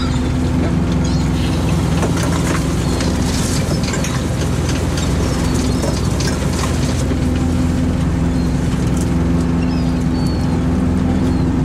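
A fishing boat's engine and net hauler running with a steady hum while the gill net is hauled aboard. Gulls call a few times over it.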